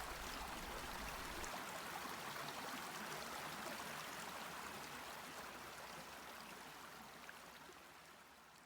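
Running water of a stream, a steady rushing trickle that slowly fades out toward the end.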